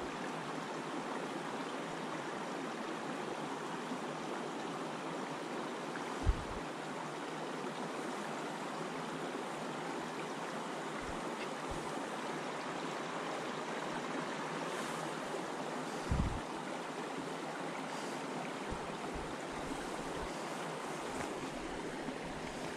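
Steady rush of creek water running through a beaver dam, with a couple of brief low thumps about six and sixteen seconds in.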